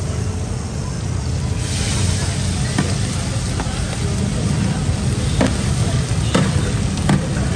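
Fish frying in hot oil: a steady sizzling hiss that swells about a second and a half in, with a few sharp clicks of utensils, over a low rumble of street noise.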